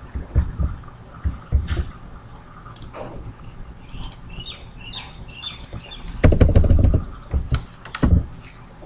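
Computer keyboard and mouse clicks: scattered single clicks, then a quick run of key taps about six seconds in.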